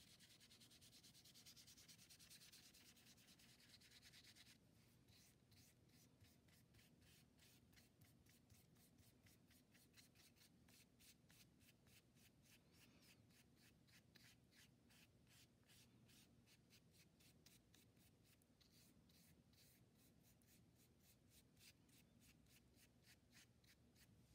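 Faint paintbrush scrubbing wet paint on paper: a continuous scratchy scrubbing for the first few seconds, then steady back-and-forth strokes, about three or four a second.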